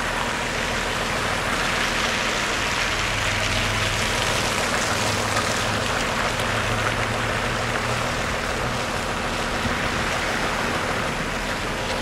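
Orion VII city bus stuck on a snowy hill, its engine running steadily under a hiss of tyres in snow and slush; the engine hum swells for several seconds mid-way. A car passes close through the slush near the end.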